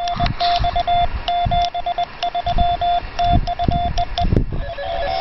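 Morse code sidetone from a portable amateur-radio transceiver: a single tone of about 700 Hz keyed by hand in dots and dashes, sending "R R CFM TNX 73 TU" and ending on two short dits ("ee"). Low rumbles sit underneath.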